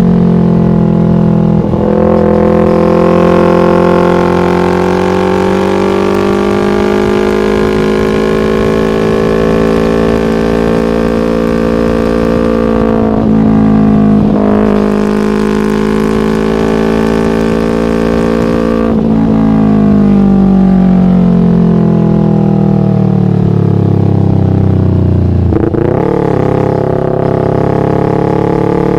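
Yamaha MT-25's parallel-twin engine through a Shadux aftermarket racing exhaust. Its pitch slowly rises and falls, with a few brief breaks where the pitch drops or jumps, the longest fall running for several seconds before a sudden jump near the end.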